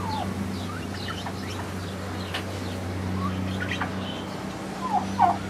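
Small birds chirping over a steady low hum, with a hen clucking a few short, loud notes near the end.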